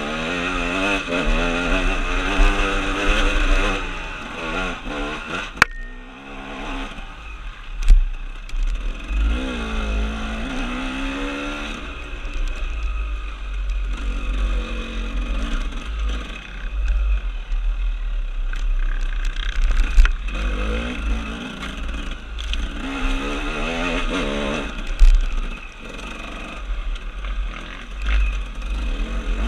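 KTM 300 two-stroke enduro motorcycle engine heard from on board, revving up and falling back again and again as the throttle is worked, with quieter off-throttle stretches. Several sharp knocks from the bike hitting bumps stand out above the engine.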